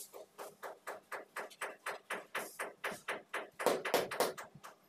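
A large ceramic floor tile being tapped over and over to bed it into the wet mortar: a fast, even run of short knocks, about five a second, growing louder near the end and then stopping.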